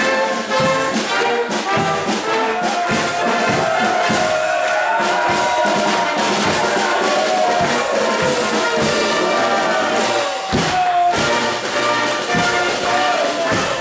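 Brass-and-reed marching band playing a tune, with trumpets, trombones and clarinets over drum beats.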